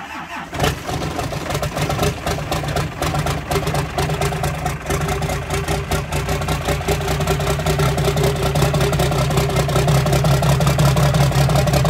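Cummins 12-valve inline-six diesel in a Jeep running at idle through a hood-mounted exhaust stack, with a fast, even firing rhythm that grows slightly louder toward the end.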